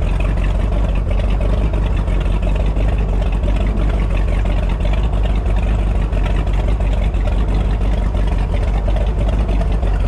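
Boat's 502 big-block Chevy V8 inboard running steadily at trolling speed, a constant low drone under the rush of water and wind.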